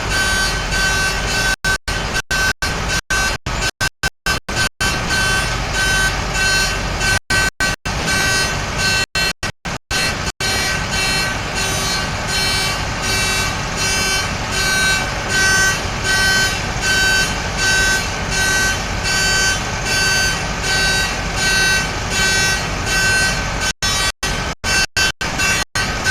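Heavy truck's reversing alarm beeping in a steady repeating pattern over the truck's engine running.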